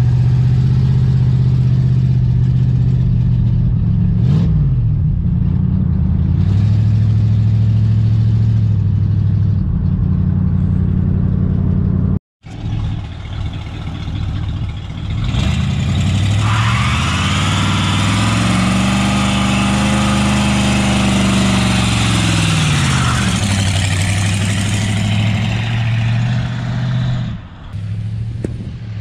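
1969 AMC Rebel's 290 V8 running under way, heard from inside the cabin with a steady engine note. After a sudden cut about twelve seconds in, the car drives up and past on the road: the engine note climbs and then falls away, with tyre noise.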